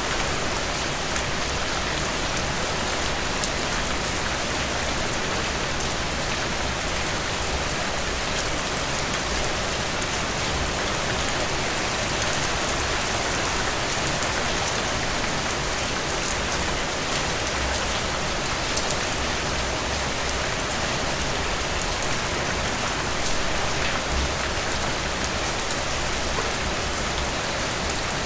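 Steady heavy rain falling and dripping onto surfaces, a dense even patter of drops.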